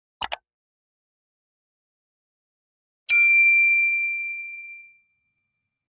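Two quick clicks, then about three seconds in a single bright ding that rings on one clear tone and fades away over about two seconds: the click-and-bell sound effect of a subscribe-button animation.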